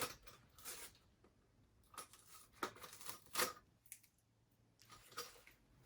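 Paper packaging being torn and crinkled by hand: about half a dozen short rips and rustles with pauses between them.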